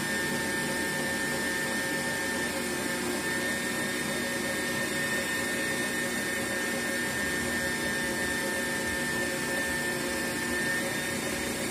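Electric stand mixer running steadily at high speed, its motor giving an even whine with several steady tones as it beats whole eggs and sugar into a pale, frothy batter.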